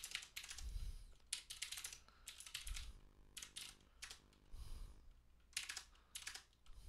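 Computer keyboard being typed on: short, irregular runs of keystroke clicks with brief pauses between them.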